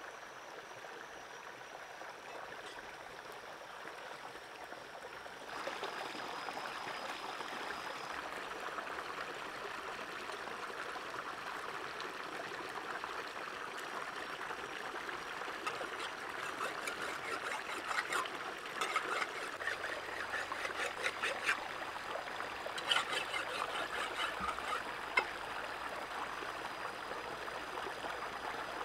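Shallow rocky stream running and trickling, louder about five seconds in. In the second half comes a run of sharp knocks and splashes as rocks in the water are struck with a machete and shifted by hand.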